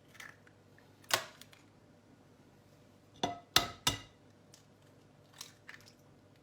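Eggs being cracked against the rim of a bowl: sharp taps of shell on the rim, with a quick cluster of three knocks about three seconds in and two fainter taps near the end.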